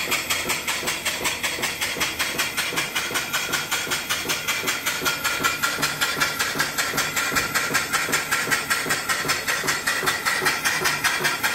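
Antique horizontal mill steam engine, 3-inch bore and 4-inch stroke, of about the 1890s, running steadily under steam. Its exhaust chuffs in a rapid, even beat over a steady hiss of steam.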